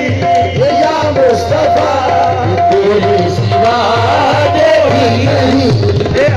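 Live qawwali music: a harmonium repeats one held note while voices sing wavering melodic lines over steady hand-drum strokes.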